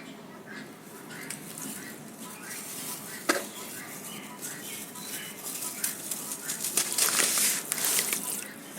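Crunchy sand crumbling in water: scattered crackles and crunches, a sharp snap a little over three seconds in, then a denser, louder stretch of crunching near the end.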